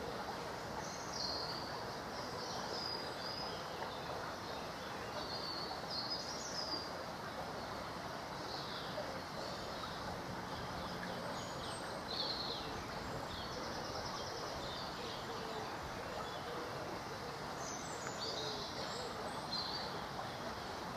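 Steady rush of flowing stream water, with small birds giving short high chirps now and then.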